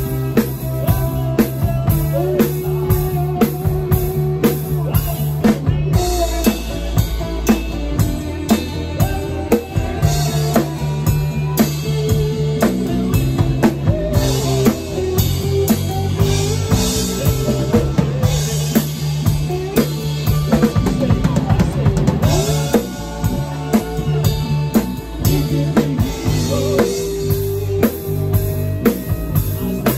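Live rock band playing, with the drum kit loud and close: a steady beat of kick drum, snare and cymbals over bass and the rest of the band.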